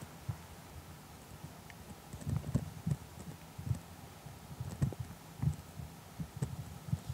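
Soft, muffled low thumps at irregular intervals, some in quick clusters, over a faint steady background hiss.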